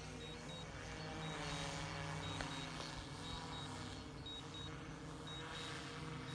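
Faint steady hum of a DJI Matrice 210 RTK drone's rotors during an automatic return-to-home flight. Over it, a high electronic double beep repeats about once a second.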